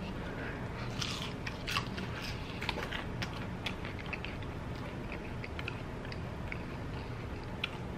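Close-miked chewing of a crispy battered onion ring: crunching and wet mouth clicks, thick in the first few seconds and then sparser.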